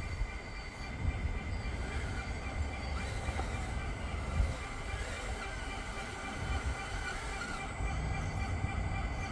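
Radio-controlled bulldozer working: a steady high whine from its electric motors and gearing.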